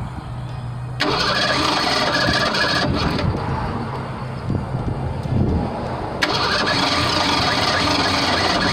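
1987 Ford Bronco II's 2.9-litre V6 being cranked by the starter and trying to catch, starting suddenly about a second in and changing around six seconds. It is hard to start because its spark plugs are wet.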